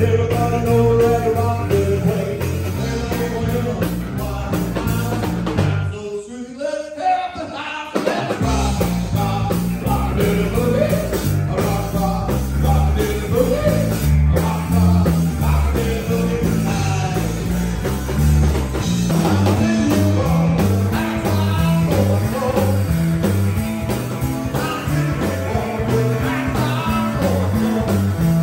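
A rockabilly band playing live, with a male singer, electric guitar, bass and drums. About six seconds in, the bass and drums stop for roughly two seconds, a stop-time break, then the full band comes back in.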